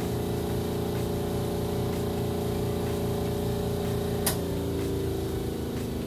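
Spin-dryer motor of a Costway twin-tub mini washing machine running with a steady hum. A sharp click comes about four seconds in, after which the hum's pitch changes.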